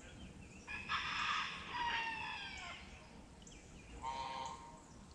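Birds calling: a long pitched call that falls in pitch toward its end, about a second in, then a shorter call about four seconds in.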